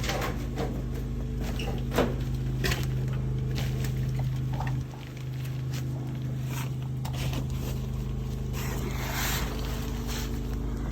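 Sewer water jetter's engine and pump running steadily under load, with a short dip in level about five seconds in, and a few scattered knocks and clicks.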